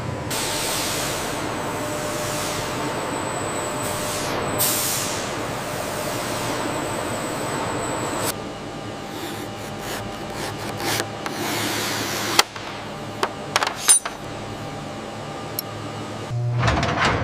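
Steady hissing machinery noise, changing about eight seconds in to quieter machine sounds with a few sharp clicks and knocks.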